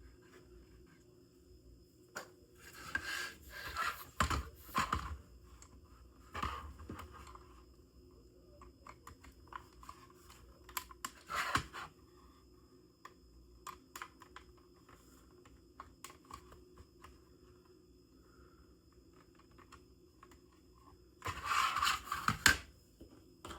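Small model-kit parts being handled and fitted by hand: scattered clicks and taps, with a few short rustling bursts, the loudest near the start and again near the end.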